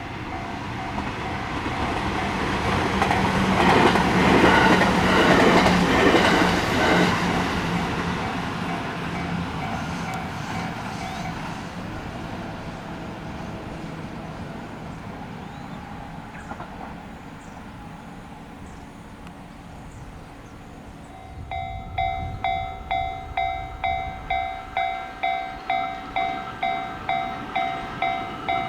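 A train passes over a Japanese level crossing while the crossing's electronic warning bell dings. The train is loudest a few seconds in, and the bell stops about 11 seconds in. About 21 seconds in, the crossing bell starts ringing again, about two dings a second, signalling another approaching train.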